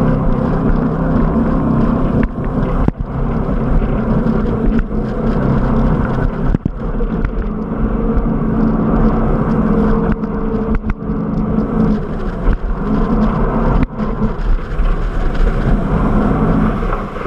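Jetboat engine running steadily at speed, with water rushing along the hull.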